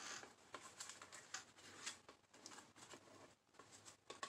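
Near silence with faint scattered ticks and light rustles of trading cards being handled.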